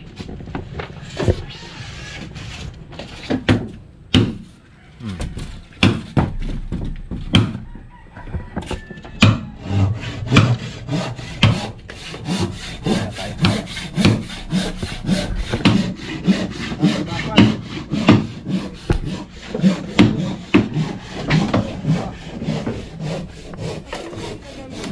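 Hand saw cutting wood in rhythmic strokes, irregular at first, then a steady two to three strokes a second from about ten seconds in.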